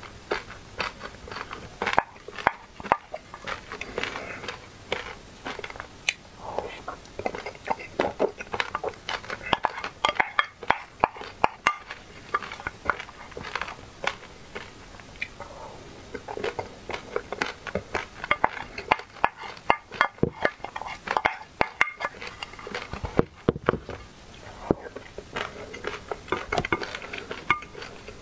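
A wooden spoon clinking and scraping in a glass dish of creamy milk dessert, mixed with chewing of the mouthfuls: many short sharp clicks in quick, irregular succession.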